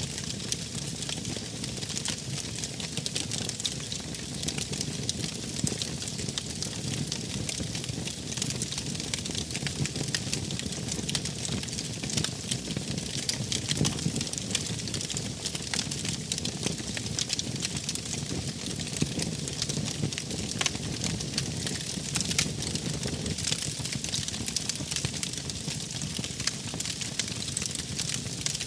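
Wood fire crackling, with a dense run of small pops and snaps over a steady low rumble of flames.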